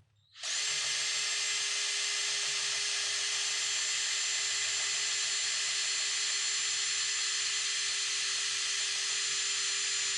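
Drill running at a steady speed with a constant whir, turning a torsion spring winder to wind a garage door torsion spring under load. It starts suddenly about half a second in.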